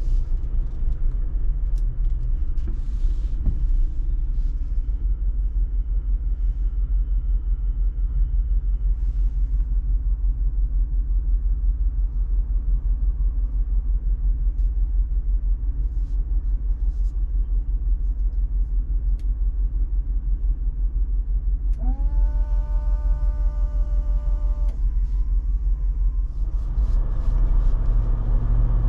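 Jeep Wrangler Rubicon 392's 6.4-litre HEMI V8 rumbling steadily at low revs. About three-quarters of the way through, a pitched tone sweeps up and holds for a few seconds over it. Near the end the engine note fills out and grows a little louder.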